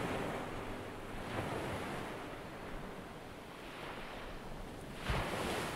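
Ocean surf washing in, a steady rush of water noise that swells briefly near the end.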